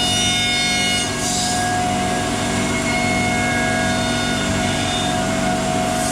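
CNC router running while its bit cuts a wooden chair seat: a steady machine whine of several held tones over a hiss of cutting that swells now and then.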